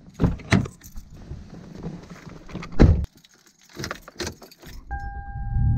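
Car door latch clicking as the door opens, then the door shut with a heavy thump about three seconds in. Keys jangle as the key goes into the ignition, a steady electronic warning chime comes on, and the engine rumble starts to build near the end.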